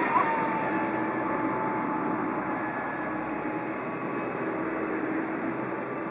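Brushless electric motor of a radio-controlled mono-hull speedboat on a 3S LiPo whining at speed across the water, slowly fading and sinking slightly in pitch as the boat runs away.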